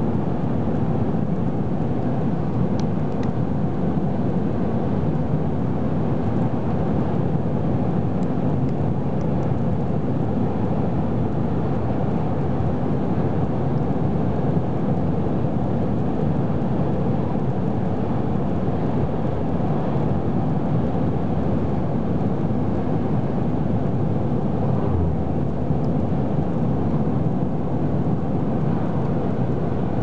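Steady low rumble of a car's tyres and engine at highway speed, heard from inside the cabin.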